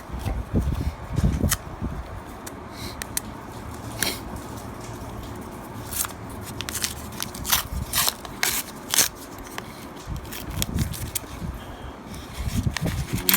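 Half-dollar coins clicking and clinking against one another as they are handled and slid through, a string of sharp irregular clicks. A low rumble of handling noise sits under the first couple of seconds.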